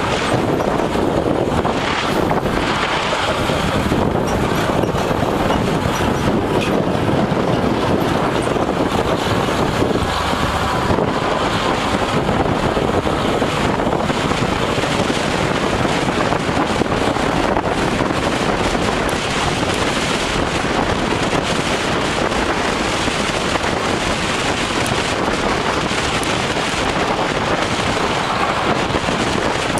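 A car driving at road speed, heard from inside the car: steady tyre and road noise with wind rushing over the microphone.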